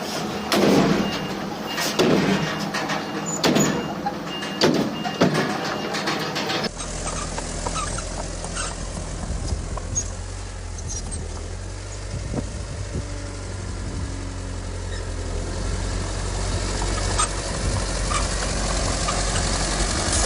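Heavy diesel earthmoving machinery. First come loud clanks about every second and a half; after a cut, a diesel engine runs steadily with a low hum.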